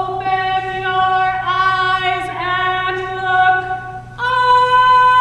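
A woman singing unaccompanied in slow, long-held notes, each starting with a short upward slide, with her pitch stepping up near the end.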